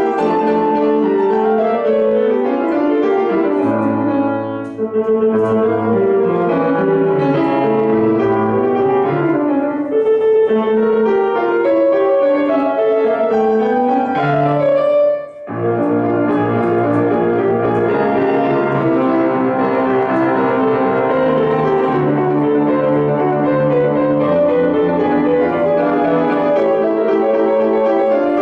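Solo grand piano playing a classical piece, with continuous rising and falling runs of notes. The playing breaks off briefly twice, the second time sharply about halfway through, then carries on.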